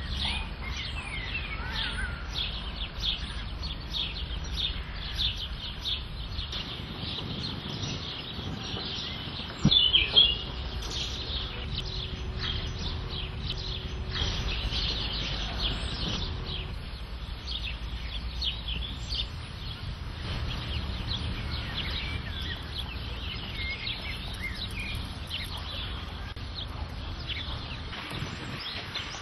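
Many small birds chirping busily and continuously, over a steady low rumble. There is one brief, louder burst about ten seconds in.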